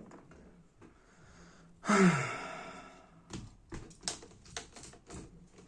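A person's loud, breathy sigh about two seconds in, falling in pitch as it fades, followed by a few light clicks and taps of small parts being handled.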